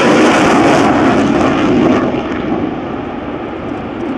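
Single-engine F-16 fighter jet passing low, its engine noise loudest in the first two seconds, then turning duller and slightly quieter as it moves away.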